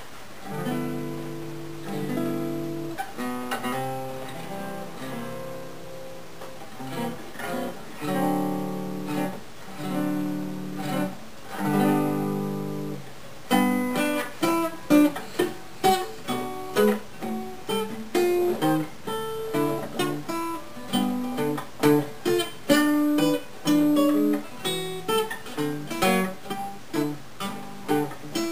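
Gibson L-48 acoustic archtop guitar played after its repair: several ringing strummed chords over the first half or so, then a run of picked single notes and short chord stabs.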